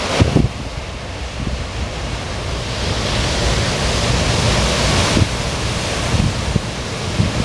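Heavy storm surf breaking on the shore, with one louder wash of breaking water swelling up midway and dropping away about two seconds before the end. Wind gusts buffet the microphone throughout, with a sharp thump just at the start.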